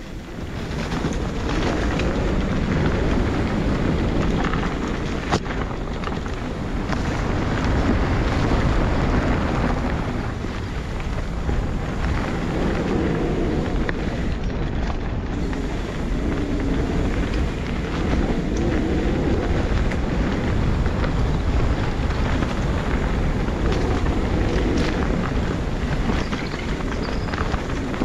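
Wind buffeting the microphone over mountain-bike tyres rolling on a dirt singletrack, a steady rushing rumble with an occasional knock from the bike.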